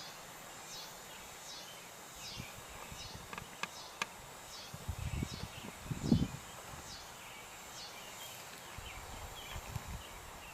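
Wires and small parts being handled: a few sharp clicks, then low thumps and rustling, the loudest thump about six seconds in. Behind them, a high falling chirp repeats more than once a second.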